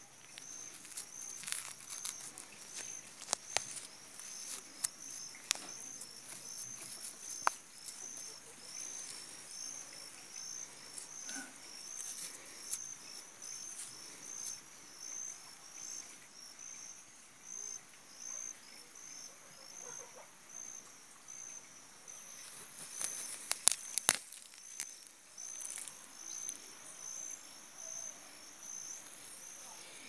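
An insect chirping steadily in short high-pitched pulses, about two a second. Scattered sharp clicks and handling rustles come over it, the loudest cluster about three-quarters of the way through.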